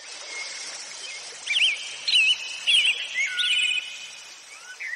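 Birds chirping over a steady outdoor ambience hiss, a nature-ambience sound effect. It fades in at the start, and clusters of short rising-and-falling chirps come in from about a second and a half in.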